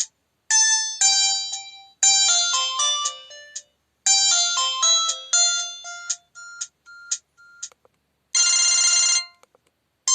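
Samsung SGH-C270 mobile phone playing its preloaded ringtone and message tones through its small speaker: a run of short, bright electronic jingles with brief pauses between them, ending in a harsh buzzing burst about eight seconds in.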